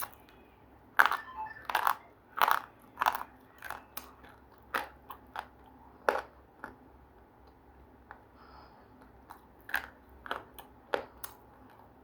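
Close-up biting and chewing of something hard and crunchy: a quick run of loud, sharp crunches in the first few seconds, then scattered crunches, and another short run near the end.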